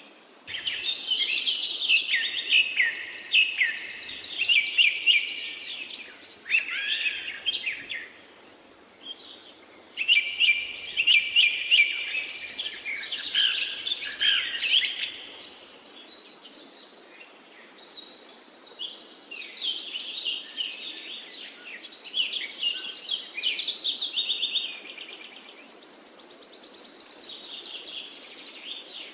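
A songbird singing long phrases of rapid, high, trilled chirps, about six phrases with short pauses between them.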